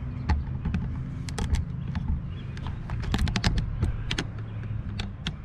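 Irregular sharp clicks and knocks of a camera being handled and repositioned, bunched about a second and a half in and again around three seconds, over a steady low hum.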